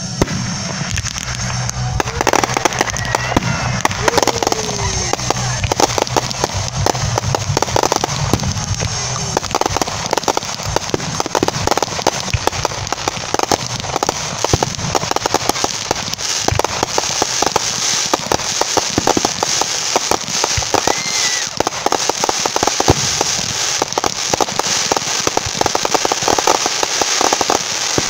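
Aerial firework shells launching and bursting in quick succession, a dense barrage of bangs and crackling that thickens toward the end.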